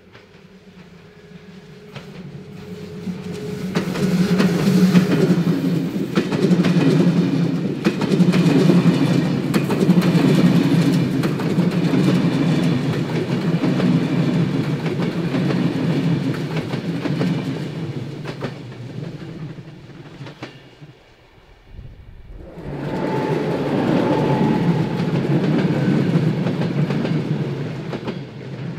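An ÖBB Railjet hauled by a class 1116 Taurus electric locomotive passes close by, its wheels running on the rails, growing loud and then fading. About twenty seconds in, a second train, an ÖBB class 4020 electric multiple unit, passes with the same loud rumble.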